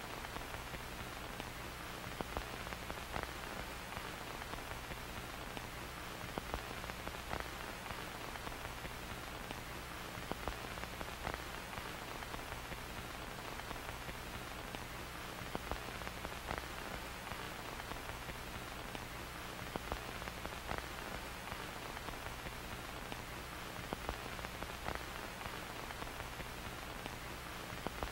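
Steady static hiss with irregular crackling pops and a low hum underneath: an old-TV static and film-crackle sound effect.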